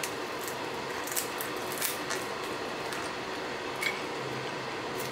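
Grilled dried squid being torn apart by hand into small pieces: a few brief, crisp snaps and tears over a steady background hum.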